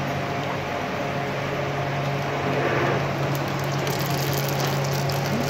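Die-sinking electric discharge machine (EDM) running: a steady electrical hum with a faint crackle, the electrode sparking in dielectric oil.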